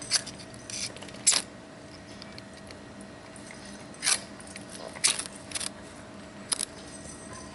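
A handful of short, sharp clicks and light rattles, scattered a second or more apart, as small hard gear is handled, over a faint steady hum.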